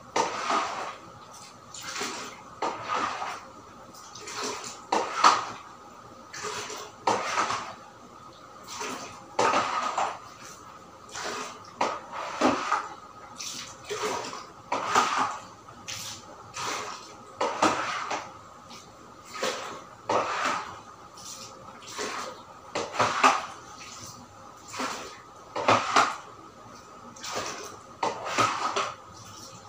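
Long-handled brush scrubbing a tiled floor, in repeated scraping strokes about once a second, some louder than others.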